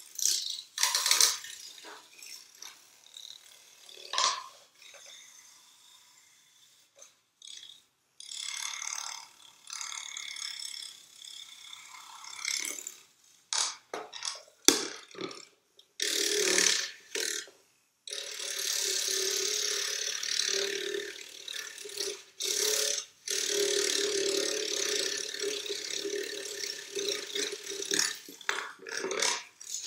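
A small handheld tool with a blue tip worked against the surface of a small box, giving irregular bursts of rattling and scraping. In the last third it settles into a near-continuous buzzing rattle with a steady low hum underneath.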